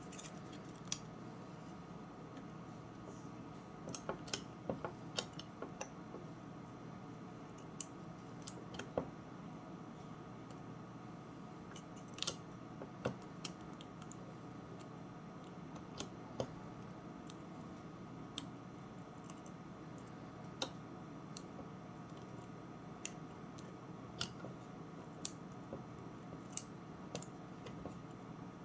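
Small metal clicks and ticks at uneven intervals from a Master Lock combination lock as a shim cut from an aluminium drink can is worked into it and the lock is handled. Some clicks come in quick clusters and others singly with pauses between.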